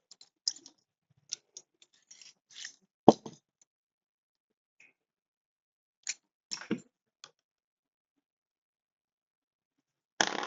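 Scattered clicks, knocks and rattles of hand tools and chainsaw parts being handled during disassembly. The loudest knock comes about three seconds in, and there is a short rattle near the end.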